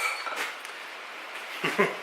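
Light blacksmith's hammer taps on steel at the anvil during touch-up of a small forged scroll. A sharp strike with a short metallic ring comes at the start and a lighter one about half a second later, then two duller knocks near the end.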